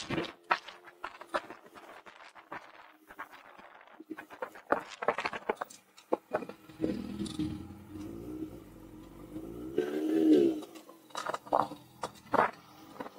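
Sport motorcycle engine running at low speed, revving up with rising pitch about halfway through and easing off again. Scattered irregular clicks and knocks on the microphone throughout.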